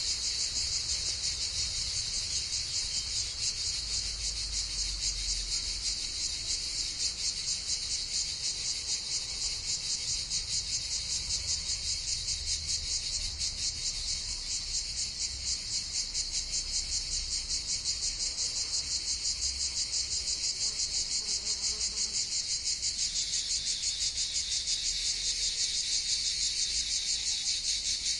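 Cicadas buzzing in a continuous high-pitched drone that pulses fast and evenly.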